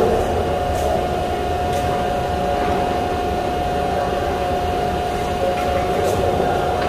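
Metal fabrication shop machinery running with a steady drone and a constant mid-pitched whine, with a few faint clicks.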